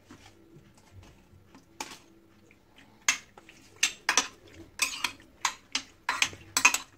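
Metal spoon clinking and scraping against a ceramic baking dish while béchamel sauce is spread over macaroni. A few light clicks at first, then a quick run of clinks from about three seconds in.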